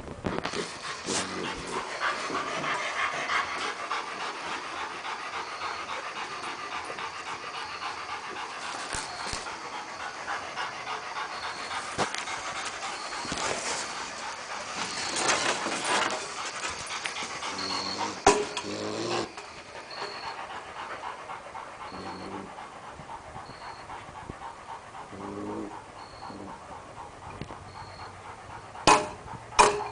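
Hunting dog panting hard and fast at a caged raccoon, the panting easing off about two-thirds of the way through.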